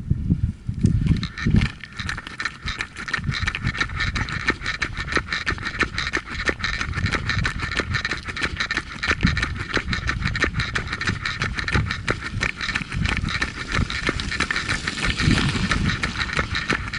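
A runner's footsteps slapping on asphalt at a steady running pace, with low wind rumble on the microphone and a constant rattling hiss.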